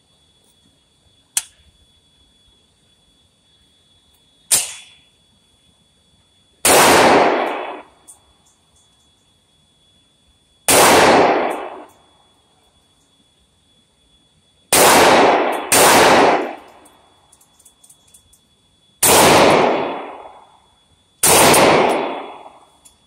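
Kel-Tec Sub2000 Gen 3 carbine fired six times at a slow, uneven pace, two of the shots about a second apart. Each shot is loud and clipped, with an echo in the indoor range that dies away over about a second. Two quieter sharp cracks come in the first few seconds, before the first shot.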